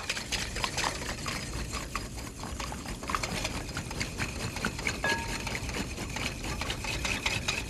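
Wire whisk beating eggs and milk in a glass bowl: a fast, steady run of light clicks and swishes as the wires strike the glass.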